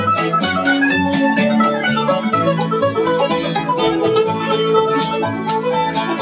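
Acoustic bluegrass band playing live, with guitar and mandolin picking rapid notes over an upright bass keeping a steady beat.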